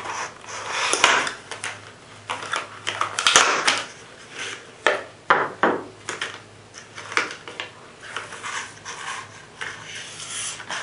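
Stiff clear plastic blister pack being pried open and handled: a run of irregular sharp crackles and crinkles of the plastic.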